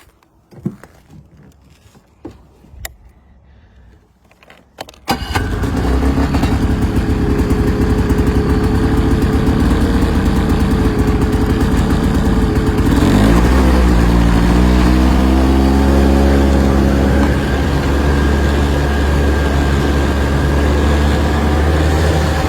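Single-cylinder two-stroke snowmobile engine of an Arctic Cat Blast ZR 4000 starting about five seconds in after a few faint clicks, then running steadily. About eight seconds after it catches, its pitch rises and it holds a faster, steady speed.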